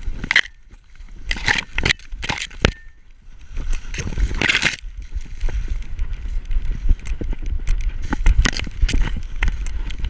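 Dry cornstalks and husks crackling and rustling as a dog pushes through standing corn, with its footfalls thumping in snow, all close on a camera strapped to the dog's back. Several loud crackling crashes come in the first half, then a quicker patter of steps and brushing leaves.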